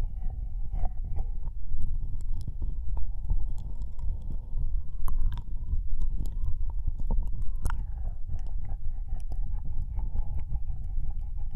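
Wet ear-licking and mouth sounds close to a binaural microphone's ear: many small wet clicks and smacks over a steady low rumble.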